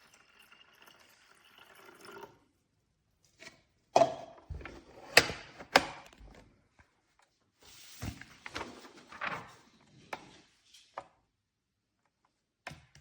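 Handling noise from a small desktop evaporative air cooler being worked with by hand: a scattered series of sharp clicks and knocks, with a soft rustle between about eight and ten seconds in.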